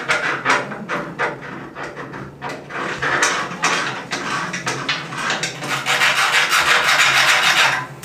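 A screwdriver used as a chisel, scraping and gouging out a round hole in a wooden kitchen countertop. It starts as separate short strokes and turns into steady continuous scraping near the end.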